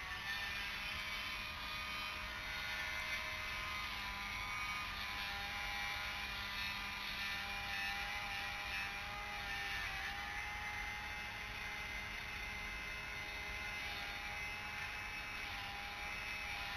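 Steady background noise with faint, slightly wavering whining tones running through it, without any distinct event.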